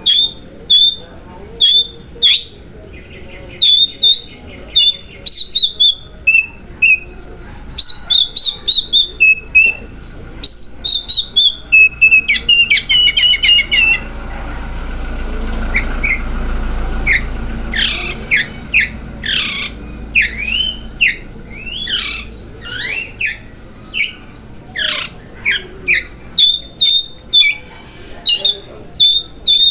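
Oriental magpie-robin (kacer) singing: loud, short whistled notes repeated over and over, a quick run of rapid notes about halfway through, then a series of downward-sliding whistles. Partway through, a steady rushing noise swells for a few seconds under the song.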